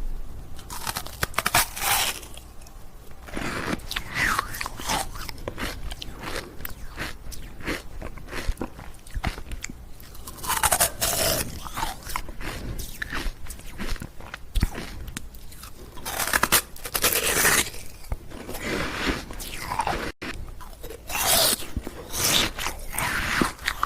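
Ice cubes being bitten and crunched between the teeth close to the microphone. Loud crunching flurries come every few seconds, with quieter chewing of the fragments between them.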